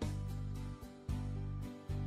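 Instrumental background music with low notes struck at a steady pulse.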